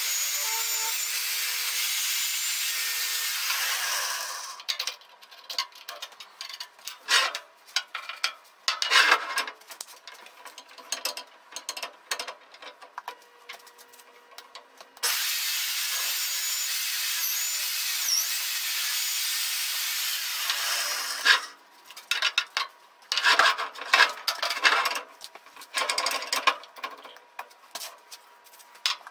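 Magnetic drill with an annular cutter working steel plate: two spells of steady running, about four and six seconds long, with clattering and scraping between them as metal chips are cleared and the drill is slid along to the next hole.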